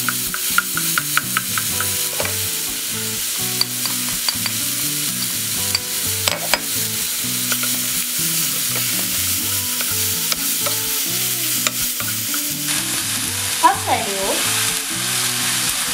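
Sliced champignon mushrooms and onion frying in oil in a pan: a steady sizzle, with a wooden spatula tapping and scraping against the pan as it stirs.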